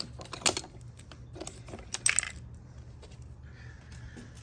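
Sharp metallic clicks and clinks of a socket, bolt and hand tools, loudest about half a second and two seconds in, then lighter taps. This is the bolt-and-socket press being broken loose from a newly pressed-on window crank knob.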